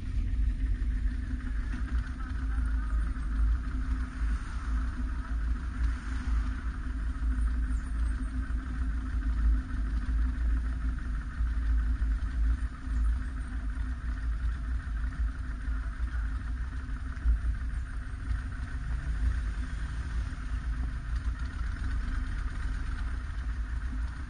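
Motorcycle engine running steadily at low revs while the bike creeps along in slow traffic, heard from the rider's own bike, over a constant low rumble.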